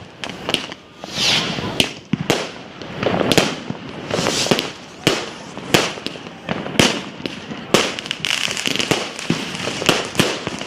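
Fireworks going off: many sharp bangs at irregular intervals, roughly one or two a second, over continuous crackling.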